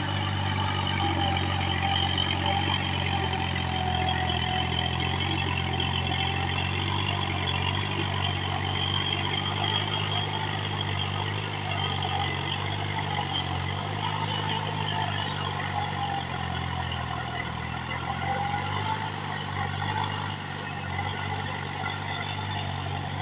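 Compact tractor's engine running steadily under load as it pulls a rotavator through a flooded paddy field, a continuous low hum with fainter rattle above it.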